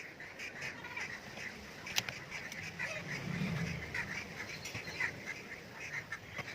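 Repeated short bird calls, with a sharp knock about two seconds in.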